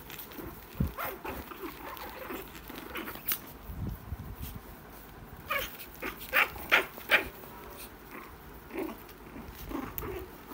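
Shih Tzu puppies play-fighting, giving short high yaps and small barks, with a quick run of four or five loud yaps about six seconds in.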